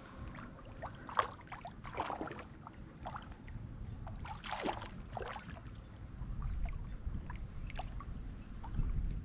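Shallow water sloshing and gurgling in short, irregular splashes over a low rumble that grows louder in the second half.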